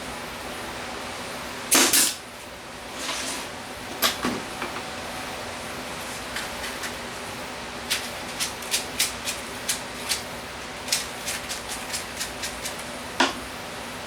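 Hard objects being knocked and handled on a workbench: a loud double knock about two seconds in, then a run of irregular sharp clicks, over a steady background noise.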